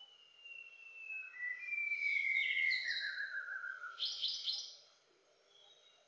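White-browed shama (Copsychus luzoniensis) singing: long, clear whistles sliding slowly downward in pitch, broken by quick runs of higher notes, the last run about four seconds in.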